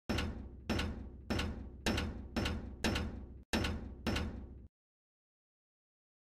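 Logo-intro sound effects: a run of about eight heavy impacts, a little under two a second, each with a ringing tail, stopping abruptly about three quarters of the way through.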